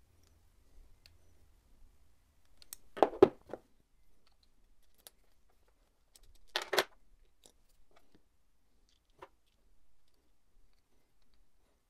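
Hex key turning the battery end cap of a PowerTap P2 power-meter pedal: two short metallic scrapes a few seconds apart, with a few faint ticks between, as the cap is screwed in and tightened.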